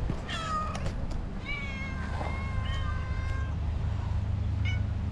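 Stray cats meowing: one meow in the first second, then several cats calling over each other for a couple of seconds, and a short meow near the end, over a steady low hum.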